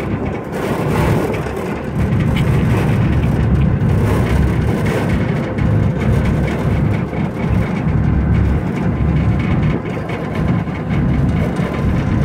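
Wind buffeting the microphone on the deck of a car ferry under way, over the low, steady rumble of the ferry's engines, with a faint steady hum running through it.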